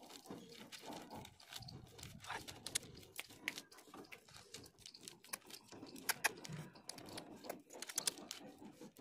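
Faint rustling and scattered sharp crackles of a sheet of paper being folded and creased by hand on a tabletop.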